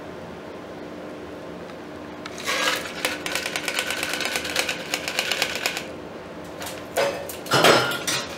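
Ice rattling rapidly inside a metal cocktail shaker tin for about three and a half seconds while the last of a shaken cocktail is double-strained through a strainer. Near the end come two or three loud metal clanks as the bar tools are set down.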